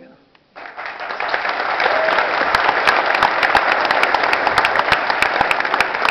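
Audience applauding, starting abruptly about half a second in and quickly building to dense, steady clapping.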